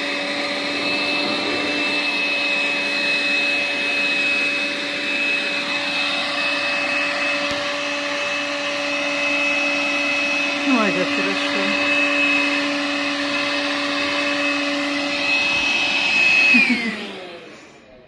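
Handheld stick vacuum cleaner running with a steady high motor whine as its nozzle is worked over a long-haired cat's fur. Near the end it is switched off and the whine falls away.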